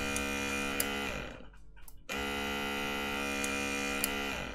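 Small DC gear motor of an automatic cat feeder driving its plastic gear train in short runs. It whines steadily, winds down with a falling pitch about a second in, starts again about two seconds in, and winds down again near the end. The motor is being switched on over and over to test whether it jams and triggers its false low-battery fault.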